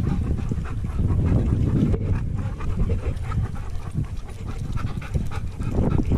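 Dog panting close by, over a steady low rumble.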